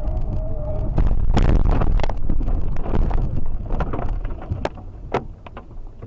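Vehicle collision picked up by a dash cam: road rumble under a steady squeal that breaks off about a second in, then a loud burst of crashing noise with sharp knocks lasting about two seconds, fading to rumble with a few single clicks.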